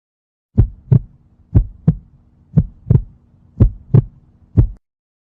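Heartbeat sound effect: low lub-dub thumps in pairs, about one beat a second, four full beats and a single thump before it cuts off suddenly.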